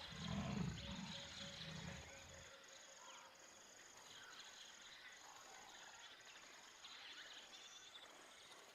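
Faint bush ambience of an insect trilling steadily on one high note with short regular breaks, with a few faint bird chirps over it. A low rumble in the first two seconds fades away.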